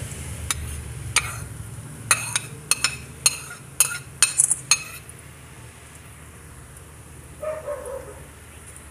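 Metal spoon clinking and scraping against a plate and the metal pan as diced ham and carrots are pushed off onto the omelette: a quick run of about a dozen sharp clicks in the first five seconds, over a low steady hum.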